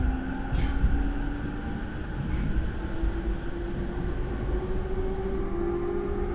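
JR E231 series electric train's Mitsubishi IGBT traction motors whining heard inside the motor car, the pitch rising slowly as the train gathers speed over steady wheel and track rumble, with a few light clicks. The motor sound is loud and slightly off-sounding, as refitted equipment on this car tends to be.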